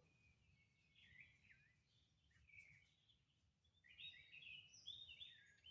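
Faint birdsong: scattered chirps, then a busier run of chirping about four seconds in, over a low background rumble.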